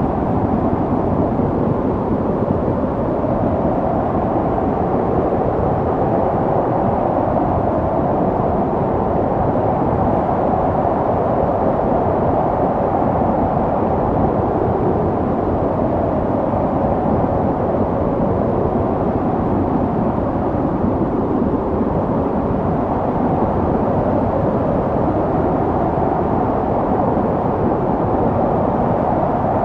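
Snowstorm wind blowing steadily, a low, even rushing with no breaks or sudden gusts.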